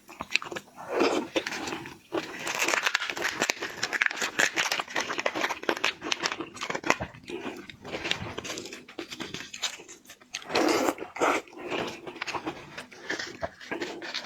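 Close-up eating sounds of a person chewing and biting seafood, with a dense run of wet clicks and crunches and no steady rhythm.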